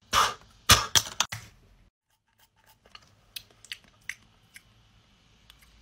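Snake Spray liquid candy spray bottle pumped into the mouth: a short hiss, then four quick sharp spritzes within about a second. These are followed by scattered faint clicks of the plastic pump bottle being handled.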